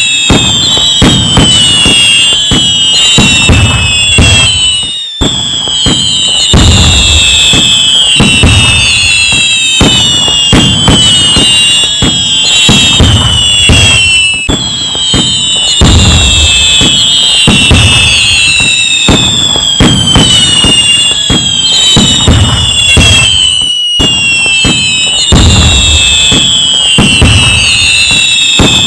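A loud fireworks barrage: dense crackling bangs and low booms, overlaid with many whistling rockets whose whistles fall in pitch. There is a brief break about five seconds in.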